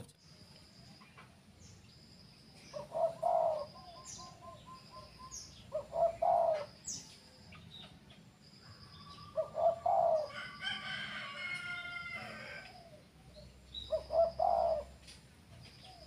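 A dove cooing in short phrases, four times, about three to four seconds apart. Small birds chirp high in the background, and another bird gives a longer, higher call about ten seconds in.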